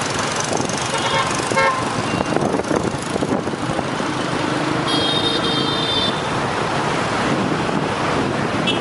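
Dense motorbike and car traffic: engines running under a steady rush of road noise, with a few short horn beeps about a second in, one horn held for about a second midway, and another short beep near the end.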